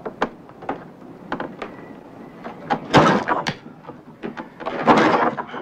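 Irregular knocks and clicks, with two louder, longer clattering noises about three and five seconds in.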